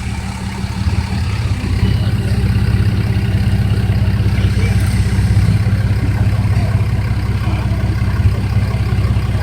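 Monster truck's engine running with a steady low rumble, growing louder about a second in.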